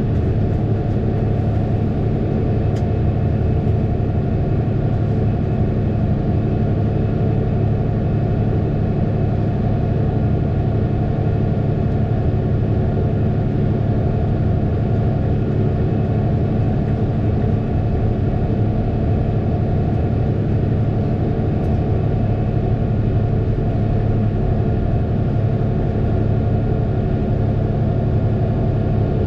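Fendt 936 Vario tractor's six-cylinder diesel engine running at a steady speed, a constant low drone with no change in pitch or load.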